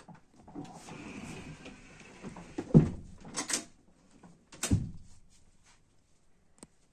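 Accordion-mechanism sofa bed being pulled out and unfolded: the frame slides out with a rough rubbing sound for a couple of seconds, then two loud knocks about two seconds apart as the sections swing out and set down, with a few clicks between them.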